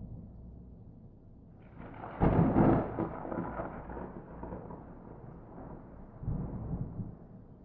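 Thunder: a close lightning strike cracks sharply about two seconds in, then rolls off into a long low rumble, which swells again briefly near the end.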